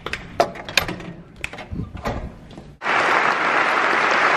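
Footsteps on a hard tiled floor, a run of irregular clicks and knocks. About three-quarters of the way through, audience applause starts suddenly and continues.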